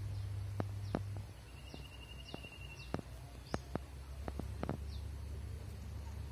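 Outdoor ambience with a steady low hum and scattered sharp clicks. Small birds give several short, falling chirps, with a brief trill near the middle.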